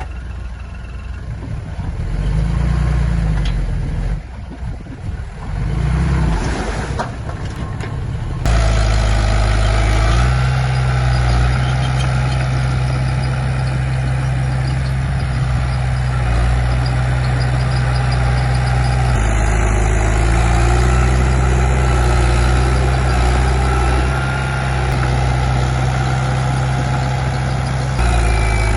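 Heavy diesel earth-moving machinery running with a deep, steady engine note. The sound shifts abruptly about a third of the way in, again past the middle, and near the end.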